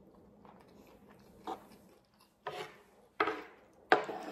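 Close-miked eating sounds: soft chewing, then four short clinks and scrapes about a second apart, each louder than the last, as a fork and spoon scoop rice and beef stew off the plate.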